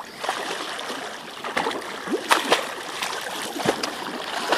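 Shallow water splashing and sloshing as a toddler slaps and paddles in it with his hands, with several sharper splashes among a steady wash of water.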